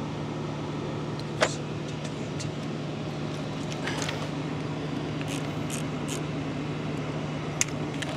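Steady low machinery hum, with a few sharp metal clicks from a torque wrench being handled and set. The two loudest clicks come about a second and a half in and just before the end.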